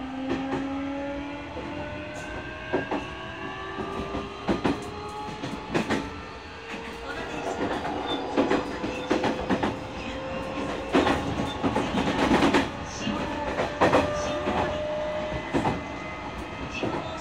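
Nishitetsu 9000 series electric train heard from inside the car as it accelerates: its Toshiba hybrid-SiC IGBT VVVF inverter and totally enclosed fan-cooled induction motors whine in several tones that climb steadily in pitch. The wheels clack over rail joints at irregular intervals.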